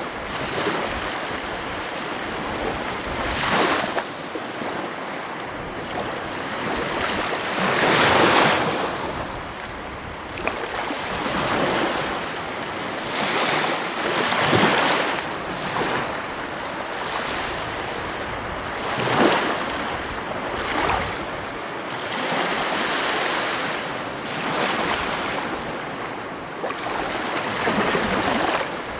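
Heavy ocean waves breaking on the shore, a steady surf wash that swells into a louder crash every few seconds, with the biggest near 8 s and 19 s. Some wind on the microphone.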